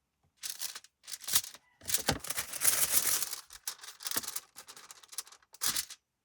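Paper being handled: an envelope rustling and scraping in a series of short bursts, with one longer stretch of rustling about two seconds in.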